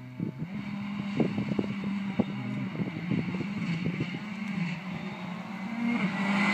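Ford Fiesta rally car approaching flat out on a tarmac stage, its engine note rising and falling through gear changes and growing louder as it nears.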